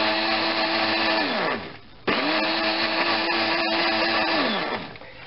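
Electric blender whipping melted butter into egg yolks for a béarnaise emulsion, run in two pulses. The motor runs steadily and winds down about a second and a half in. It starts again with a quick rising whine about two seconds in and winds down once more near the end.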